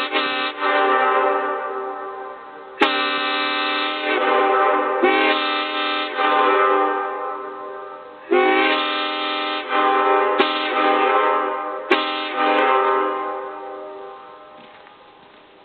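Homemade five-bell PVC air horn, built like a Leslie train horn and fed from air tanks, sounding a multi-note chord in a series of long blasts. Each blast starts with a quick rise in pitch and then tapers off, and the last one dies away near the end.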